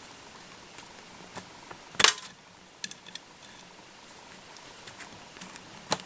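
Small clicks and taps from handling tools and materials at a fly-tying vise, scattered through, with the loudest cluster about two seconds in and another sharp click near the end.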